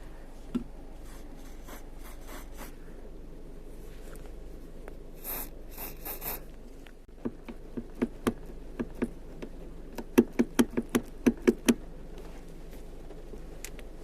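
Aerosol lubricant spray hissing in three short bursts, followed by a run of sharp clicks and knocks that come quickest near the end.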